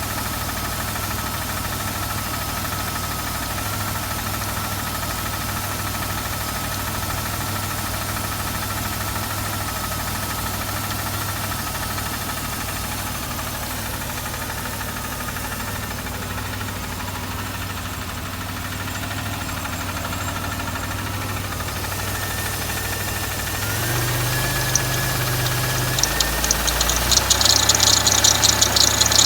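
Buick Riviera engine running with a knock. It holds a steady idle, then the engine speed rises about two-thirds of the way through, and a rapid, loud ticking knock comes in near the end.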